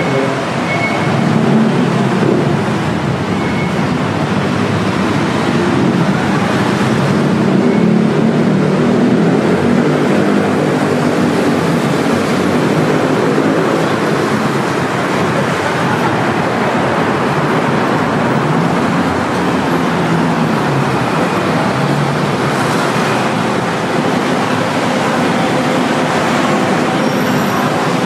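Steady city road traffic: a continuous mix of vehicle engines and tyres, with engine notes rising and falling as vehicles pass.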